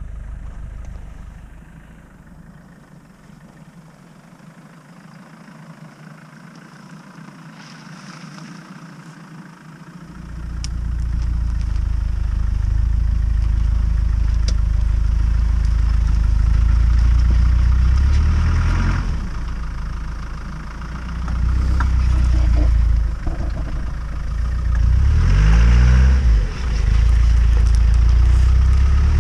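Off-road 4x4 SUV engine, faint at first, then loud from about ten seconds in as the vehicle drives into a muddy rut. The engine revs up and down several times in the second half while it works through the mud.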